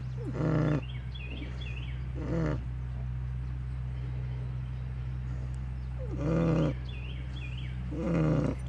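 Pigs snoring in their sleep: two rasping snores about two seconds apart, a pause, then another pair of snores in the same rhythm, over a steady low hum.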